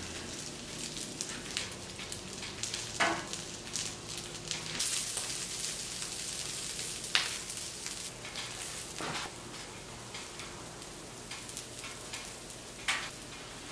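Onions and peppers sizzling on the hot steel flat top of a Blackstone gas griddle, a steady hiss, with a few light clicks and scrapes of a spatula and spoon.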